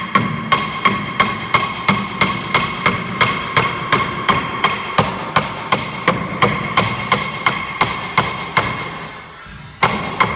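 Hammer blows driving a narrow tongue-and-groove pine beadboard ceiling strip sideways into a tight spot, struck rapidly and evenly at about three blows a second with a metallic ring. The blows stop briefly near the end, then start again.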